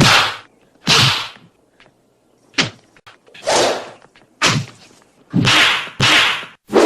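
A series of about eight cinematic punch sound effects, each a quick swish ending in a hit, some with a low thud, spaced roughly a second apart.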